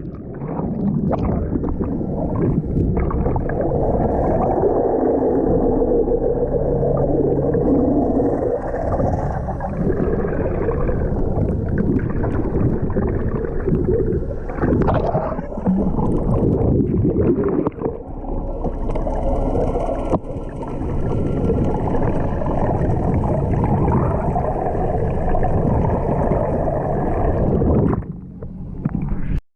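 Boat engine running under way, with wind and water rushing past in a steady, dense rumble; it cuts off near the end.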